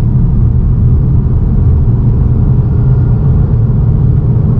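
Ford Mustang GT's 5.0 L V8 exhaust with long-tube headers running steadily, a deep, even rumble with no revving.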